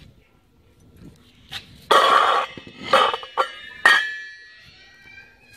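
A steel lid scraping and clinking against a painted clay bowl: a scrape about two seconds in, a couple of knocks, then a sharp clink that rings on briefly.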